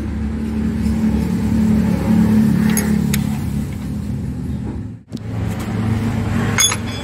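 Steady low hum of an engine running in the background, with a couple of light metallic clicks from a wrench at the connecting-rod bolts. The sound drops out for an instant about five seconds in.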